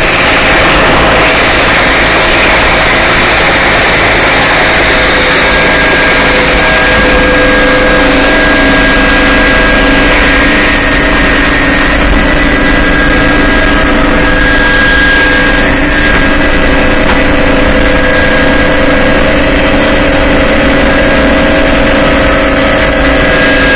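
Helicopter engine and rotor noise heard from inside the cabin: loud and steady, with a constant high whine.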